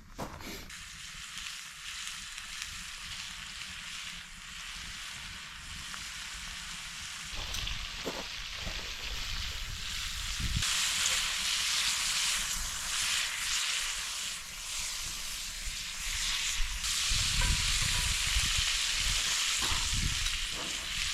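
Food sizzling in a frying pan, a steady hiss that grows louder about ten seconds in. Low gusts of wind hit the microphone near the end.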